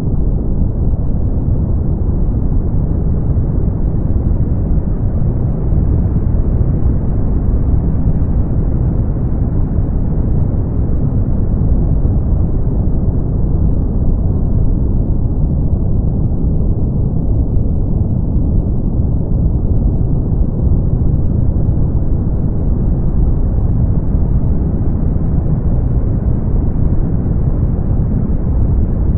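Continuous brown noise: a low, even hiss with no high end, its brightness wavering slightly and slowly.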